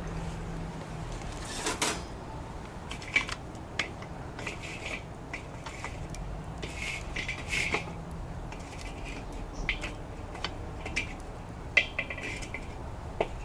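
Wood fire burning in a Coleman Fire Disk, crackling with irregular sharp pops and light clinks, over a low steady rumble of distant traffic.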